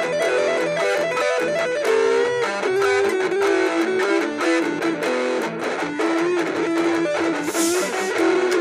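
Sqoe Super Stratocaster electric guitar played with distortion: a single-note lead of quick runs with string bends and vibrato. A brief burst of hiss comes near the end.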